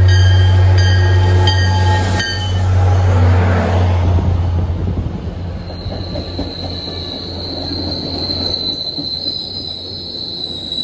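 MBTA commuter rail diesel locomotive passing close by, its engine a deep steady drone and its bell ringing about every 0.7 seconds; the bell stops about two seconds in as the locomotive goes by. The passenger coaches then roll past with a steady high-pitched wheel squeal.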